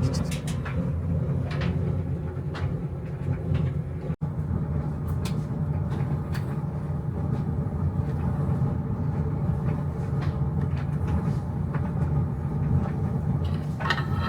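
Steady low road and engine rumble inside a moving vehicle, with a few faint clicks and rattles and a momentary dropout about four seconds in.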